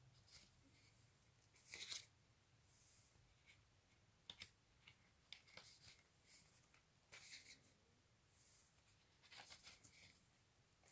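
Faint swishes and scrapes of cardboard LP sleeves sliding against one another as records are flipped forward one by one, the loudest about two seconds in.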